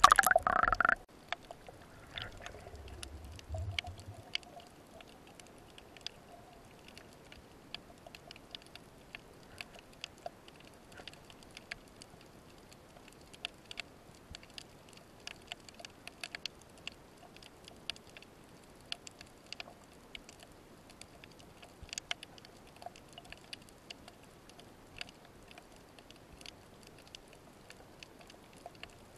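A loud splash as the spearfisher's duck dive breaks the surface, a low rumble from about 2 to 4 seconds as he sinks, then a faint underwater background of scattered sharp clicks and crackles while he lies still on the rocky bottom.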